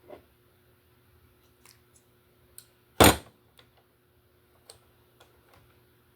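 Scattered light clicks and taps from handling the plastic parts of a Roomba robot vacuum, with one sharp knock about three seconds in, over a faint steady hum.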